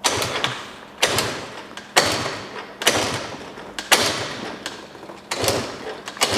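Piaggio NRG 50 two-stroke scooter being kick-started over and over, a kick about once a second, six or seven in all: each kick a clatter of the kickstart lever and the engine turning over briefly. The engine never catches and runs.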